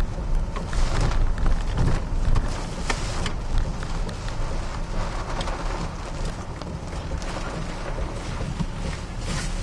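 Hurricane-force wind and driving rain beating on a truck, heard from inside the cab: a steady heavy rumble with many sharp taps against the body and glass, thickest in the first few seconds.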